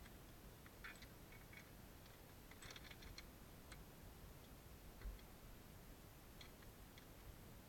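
Near silence with faint scattered metallic clicks from a dirt bike's drive chain being handled at the rear sprocket, a few close together about three seconds in, and a soft thump about five seconds in.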